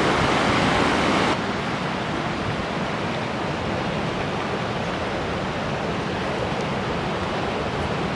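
Steady rushing noise of flowing water, like a nearby mountain stream, dropping slightly in level about a second in.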